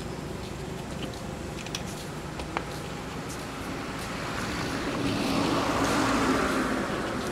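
A motor vehicle driving past: a steady background hum swells from about four seconds in, peaks near the end and begins to fade. A single sharp click comes about two and a half seconds in.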